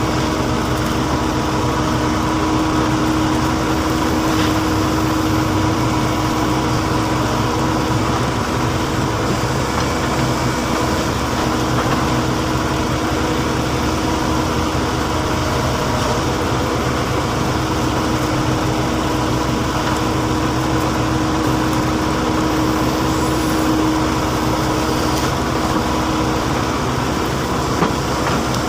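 Heavy diesel engine of a backhoe loader running steadily, a constant engine drone.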